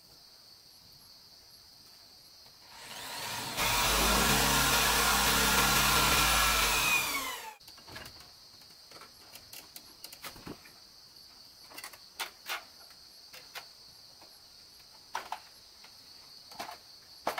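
Handheld electric drill boring into wood: it winds up about three seconds in, runs loudly for about four seconds with its pitch rising near the end, then cuts off suddenly. Scattered light knocks and clicks follow, over a steady high insect drone.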